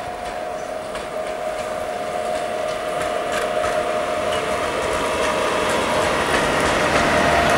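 ChS4T electric locomotive hauling a passenger train as it approaches, growing steadily louder. It gives a steady hum, with scattered clicks of wheels over the rail joints.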